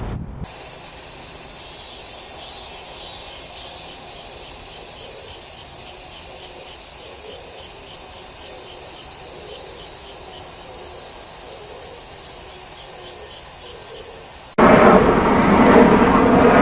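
Steady, high-pitched chorus of insects such as crickets, with faint repeating pulses. About two-thirds of the way through it cuts off abruptly to a louder, even rushing noise.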